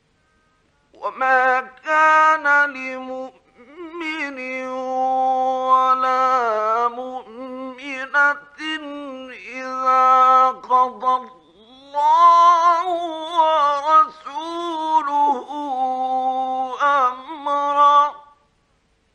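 A man's voice chanting Quran recitation in the melodic mujawwad style, with long held notes that bend and waver in ornaments and short breaths between phrases. It starts about a second in and stops shortly before the end, in an old 1950s radio recording.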